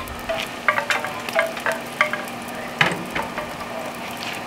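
Onions frying in oil in a clay pot (shekila dist), sizzling steadily, while a wooden spoon stirs and scrapes against the pot, with a louder knock about three seconds in. The oil is going in to soak into and season the new clay pot.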